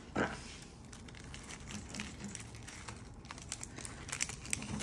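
Knife cutting through the crisp, flaky crust of a baked puff-pastry slab: a sharp crunch just after the start, then a run of faint crackles as the blade works through.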